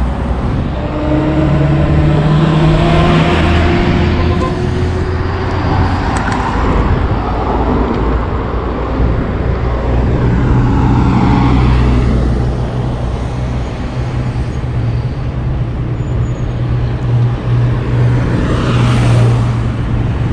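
Road traffic on a city street: cars drive past one after another, each swelling and fading, over a steady low engine hum.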